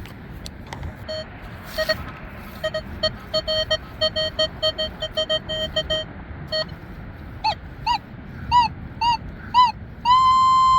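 Nokta Legend metal detector's audio signals: a run of short low beeps, about three or four a second, for several seconds as the coil sweeps, then a few quick higher rising chirps, and near the end a long steady high tone, the signal of a target under the coil. Wind rumbles on the microphone underneath.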